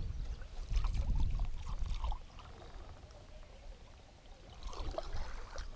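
Water splashing and gurgling close to the boat, in two short spells about a second in and again near the end, over a low rumble during the first two seconds.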